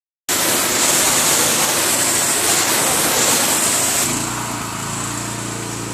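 Gas pressure washer with a Honda engine blasting a concrete slab: a loud, hissing high-pressure spray over the running engine, starting suddenly. About four seconds in the spray stops and the engine keeps running steadily.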